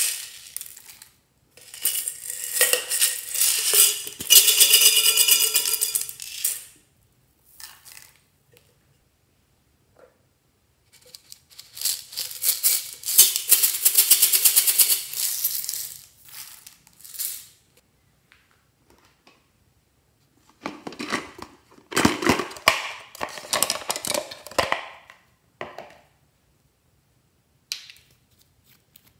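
Small plastic beads rattling inside an aluminium soda can as they are shaken out into a tray. They come in three bursts of a few seconds each, with quiet between.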